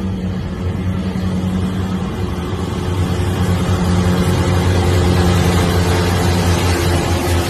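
Diesel engine of a Krone self-propelled mower running steadily as the machine cuts a crop, a low, even hum over a broad mechanical noise. It grows louder about three seconds in as the machine comes closer.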